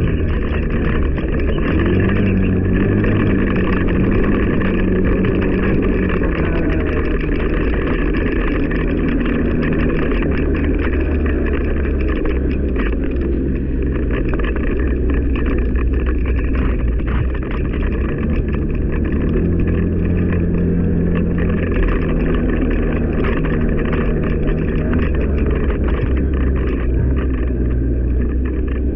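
ATV engine running under way on a trail, its pitch rising and falling with the throttle, with frequent knocks and rattles from the machine over rough ground.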